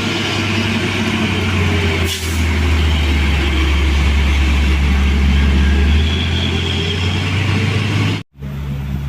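Heavy truck's diesel engine running under load with a steady low drone as it climbs a steep hill, with a brief hiss about two seconds in. The sound cuts off abruptly near the end and a different, quieter engine sound follows.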